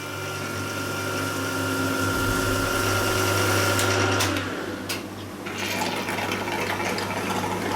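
Milling machine running with a carbide end mill cutting metal: a steady motor hum under a dense cutting noise, whose upper tone drops away about four seconds in.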